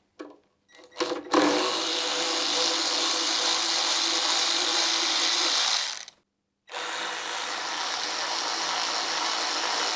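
Handheld power tool, a drill or power ratchet, running steadily in two long runs of about four and a half and three seconds with a brief stop between, after a couple of short blips; it is undoing the fasteners of the Honda GX160 engine's airbox.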